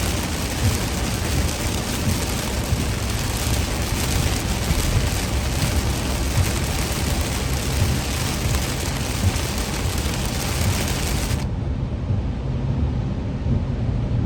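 Heavy rain pelting a moving car, a dense steady hiss over the low rumble of the car on the road. About three-quarters of the way through, the rain hiss cuts off suddenly, leaving only the low road rumble.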